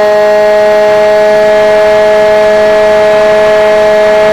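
RC airplane's motor and propeller running in flight, heard close through the plane's onboard camera: a loud, steady whine holding one pitch, over a rush of noise.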